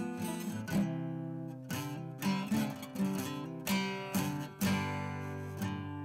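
Background music: an acoustic guitar strumming chords that change about every second.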